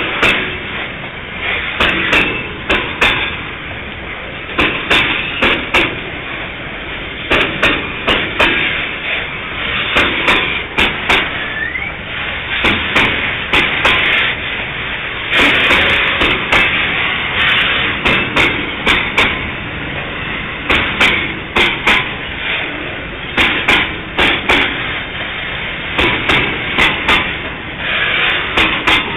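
Freight train wagons rolling past, their wheels clacking over rail joints in repeated pairs and groups of sharp knocks over a steady rumble, with a short rush of scraping noise about halfway through.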